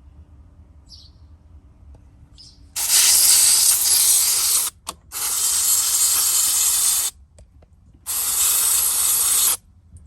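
Aerosol electrical contact cleaner sprayed onto a headlight switch's terminals in three long hissing bursts of about two seconds each, with a short puff between the first two, after a quiet first few seconds.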